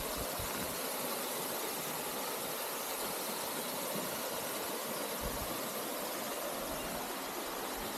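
Small waterfall pouring into a clear pool, a steady, even rush of falling water with no change in level. Its flow is low in the dry season.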